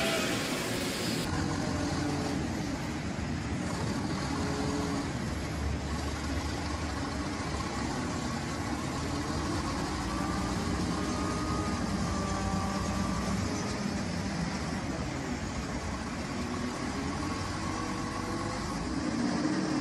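Propane (LPG) forklift's engine running steadily, with a few faint wavering tones above the low hum.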